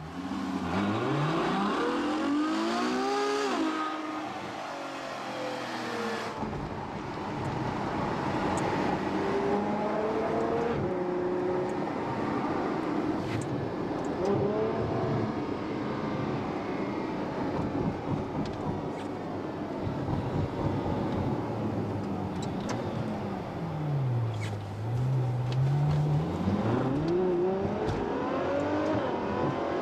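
Ferrari F12 Berlinetta's V12 engine heard from inside the cabin. It accelerates through quick upshifts at the start, settles into a steadier cruise, drops to a low pitch about four-fifths of the way through, then pulls again with a long rising pitch near the end.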